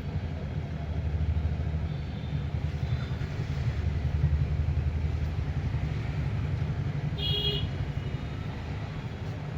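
Street traffic rumbling steadily, with one short vehicle horn toot about three quarters of the way through.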